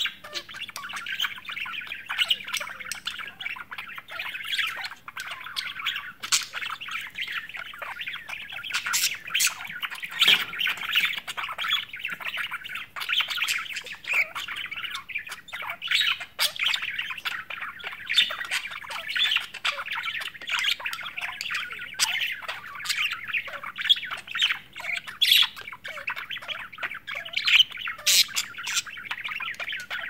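Several budgerigars chattering and warbling without a break, with frequent short, sharp chirps and squawks cutting through.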